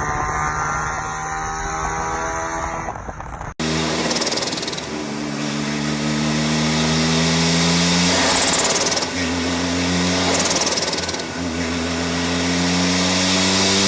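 Mazda RX-7 rotary engine exhaust. Its revs fall away, then after a sudden cut a second rotary runs with its pitch climbing slowly under light throttle and dropping back several times.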